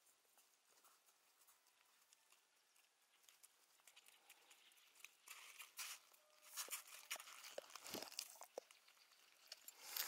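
Faint crunching and rustling of snow and dry leaves close to the microphone, in several short bursts during the second half, after near silence.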